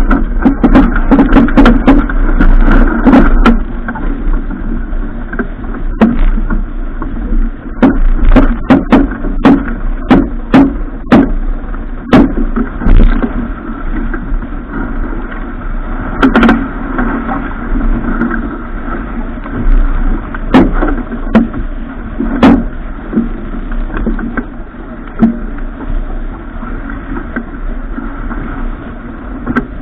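Steady rushing noise with a constant low hum, broken by many irregular sharp knocks and clatters, thickest in the first half and sparser later, heard aboard a boat on the water.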